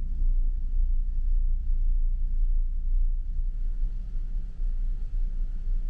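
Steady low drone of a car ferry's engines heard inside the passenger deck at sea, the hull humming with engine vibration.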